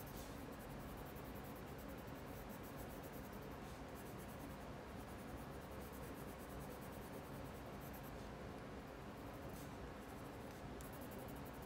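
Faint coloured-pencil strokes scratching on paper as a drawing is coloured in.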